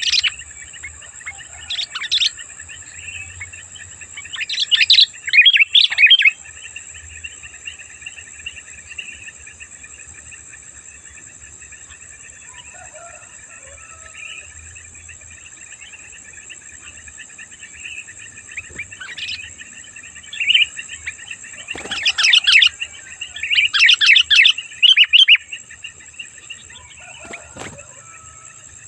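Sooty-headed bulbul (kutilang) song: bursts of bright, quick chattering phrases a few seconds in, then brief calls, then a loud cluster of phrases near the end. Steady high-pitched tones run underneath throughout.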